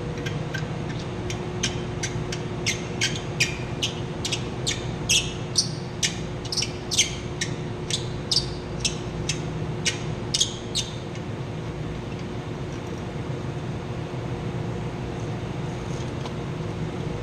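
Steady hum of running chiller-plant machinery, with a run of about two dozen short, sharp metallic clicks, two to three a second, that stop about eleven seconds in.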